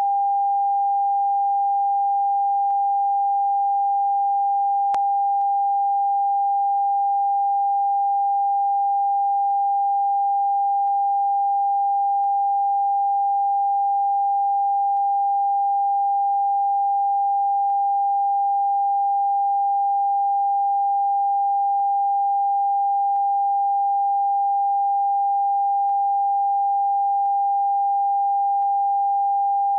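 Continuous TV test-card tone: a single steady sine-wave beep held at one pitch without a break, the end-of-broadcast signal sent out with the test card when a station has gone off air.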